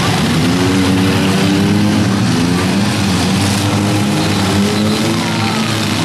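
Demolition derby cars' engines running and revving together, several pitches rising and falling at once over a dense wash of engine and exhaust noise.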